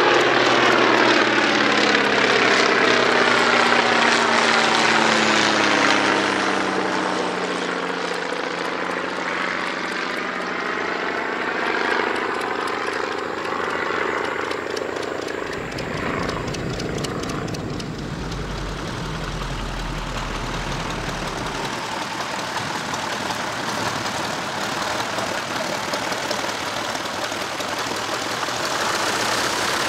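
Vintage propeller aircraft engines: a biplane's engine passes overhead, its pitch falling steadily over the first several seconds, then a steady radial-engine drone mixed with rushing air from in flight from about halfway on.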